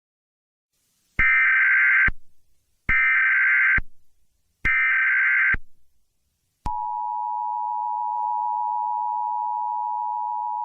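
Emergency Alert System tones: three buzzy digital data bursts (the SAME header), each about a second long and evenly spaced, followed about two-thirds of the way in by the steady two-tone EAS attention signal, which keeps sounding.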